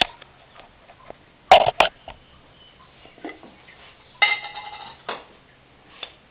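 Metal spoon and cookware clinking as ghee is spooned into a pan: two sharp knocks about a second and a half in, then a ringing metallic clink around four seconds in and a last small knock.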